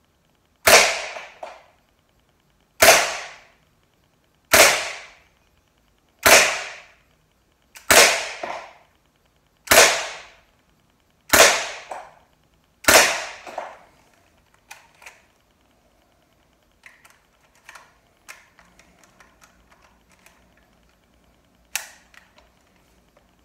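Gamo PT-85 Blowback CO2 pellet pistol firing eight shots, one about every one and a half to two seconds. Each is a sharp crack followed by a smaller second knock. Then come a few light clicks and one sharper click near the end.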